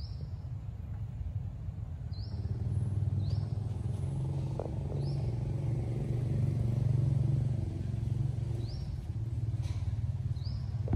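Low engine rumble of a passing motor vehicle, growing louder over the first several seconds and easing off toward the end, with a bird giving short high chirps now and then above it.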